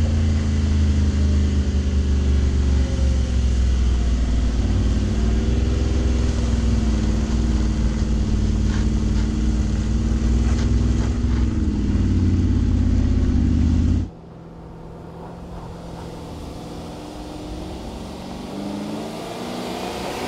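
Mercedes-Benz G-Class engine pulling steadily under load, heard close up from the vehicle's side as it climbs a steep off-road ramp, its pitch rising for a couple of seconds before a sudden cut. After the cut comes a quieter, more distant engine that slowly gets louder as the vehicle comes closer.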